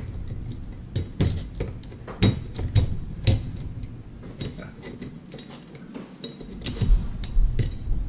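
Flathead screwdriver prying at the metal retaining clip on a Kwikset deadbolt's lock core: irregular metallic clicks, clinks and scrapes, fewer for a stretch in the middle.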